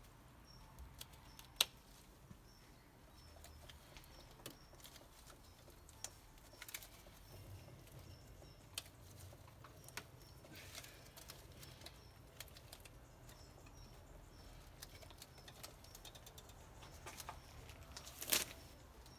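Scattered light clicks and knocks of hand tools and engine parts as a crankcase breather hose and its clamp are fitted, with a sharper knock about a second and a half in and another near the end, over a faint low hum.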